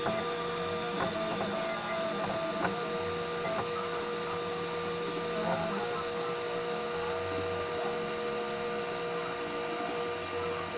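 3D printer stepper motors whining as the print head moves. Several steady tones switch on, off and change pitch every second or so as the moves change, with a few light clicks.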